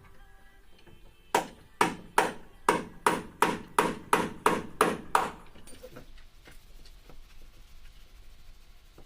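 Hammer blows, about eleven sharp strikes in an even rhythm of roughly three a second, lasting about four seconds.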